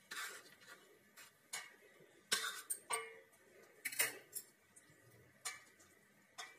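A knife and fingers clicking and scraping on a stainless steel plate while thin khandvi strips are cut and rolled: a handful of light, separate clicks and short scrapes, roughly a second apart.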